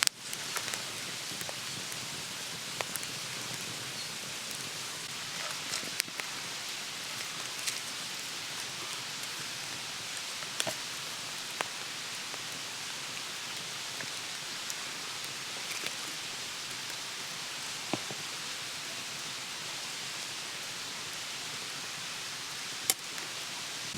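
Wood campfire burning with a steady hiss and occasional sharp pops and crackles, a few seconds apart.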